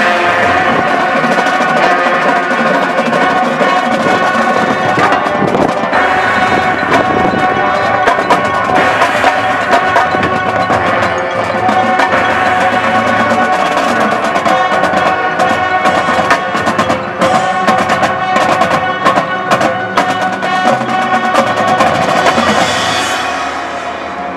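High school marching band playing: brass and woodwinds sounding sustained chords over a percussion section with frequent sharp drum hits. The music falls away in loudness near the end.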